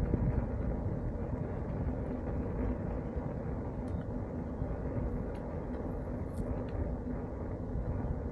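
Wind buffeting the microphone in a steady low rumble while riding a bicycle, with a few faint ticks.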